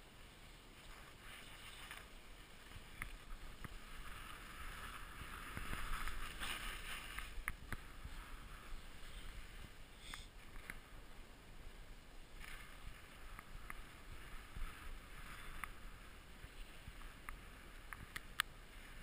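Skis sliding and scraping over packed snow: a soft hiss that swells and fades twice, with scattered small clicks and one sharper click near the end.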